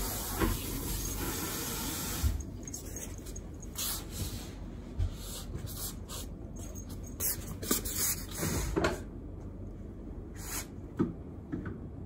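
House slippers scuffing and tapping on a wooden floor as someone walks, with scattered soft knocks and clicks. A steady hiss stops about two seconds in.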